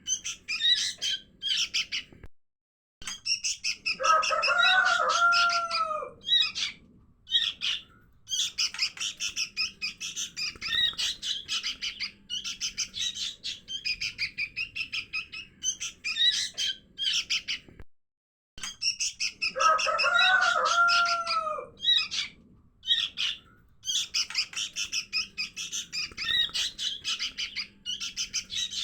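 Young sooty-headed bulbuls (kutilang) calling: fast, high, chattering chirps, played as a looped lure call that repeats about every 16 seconds. A lower, arching call sounds twice, about 4 and 20 seconds in.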